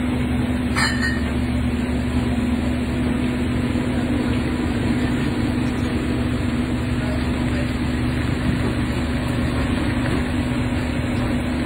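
Steady machine drone with a constant low hum, unbroken throughout, with one brief click about a second in.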